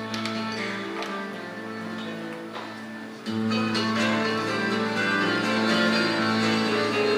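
Music led by acoustic guitar, with held notes, stepping up in loudness about three seconds in.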